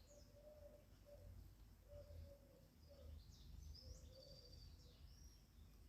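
Near silence, with faint bird chirps about three seconds in and a faint tone that comes and goes.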